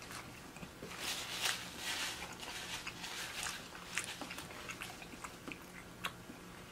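A person chewing and biting seafood close to the microphone. A soft, wet eating noise runs through the middle, with a few sharp clicks.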